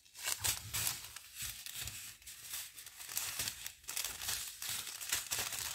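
Small plastic zip-lock bags of rhinestones crinkling irregularly as they are handled.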